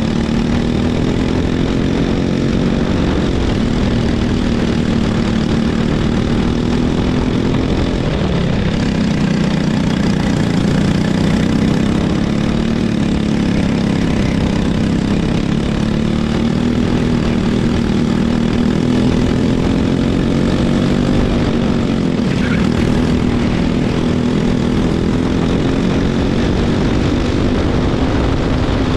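Racing kart engine running hard on track, its revs rising and falling as the kart accelerates and slows through corners, dipping briefly about eight seconds in and again a little past twenty seconds.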